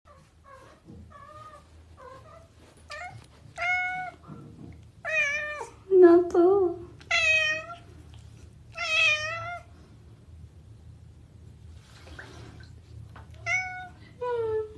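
Domestic cat meowing again and again: about eight short, wavering meows, the loudest around the middle, then a pause of a few seconds before two more near the end.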